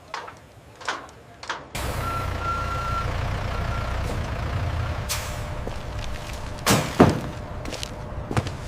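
Heavy machinery rumble, like a large engine running, that starts abruptly about two seconds in, with a brief beep and several sharp knocks.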